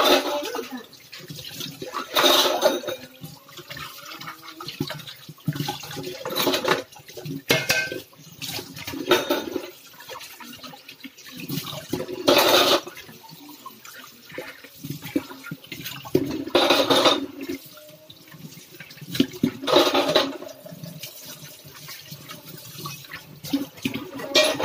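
Dishes being washed by hand in a stainless steel kitchen sink: water splashing, with loud bursts every few seconds as steel bowls are rinsed and handled, and a few short clinks.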